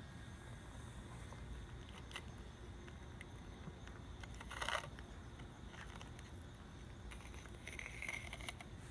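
Faint small clicks and smacks of a cat eating from a bowl, with a short rustle about halfway through.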